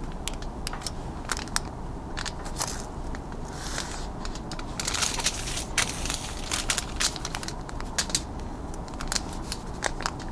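Sheet of aluminum foil crinkling and crackling as it is handled and smoothed on a table while a marker and wooden ruler are drawn across it, with many scattered sharp clicks.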